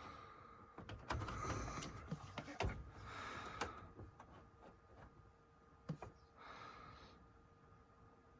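Faint clicks and knocks with short bouts of rustling handling noise, over a faint steady hum.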